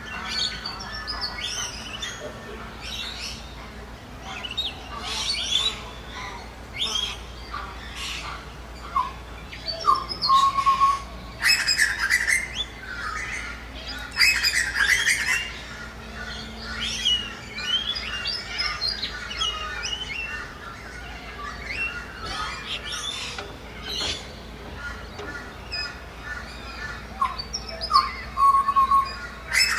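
Ducks and other birds calling, a busy mix of high chirps and harsher squawks, with the loudest run of calls in the middle and again near the end.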